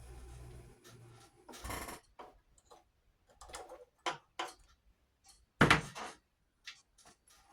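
Scattered clicks, taps and knocks from hands working a vintage 1960 White sewing machine after threading, bringing up the bobbin thread and setting up to sew, with a brief low hum in the first second and one loud knock a little past halfway.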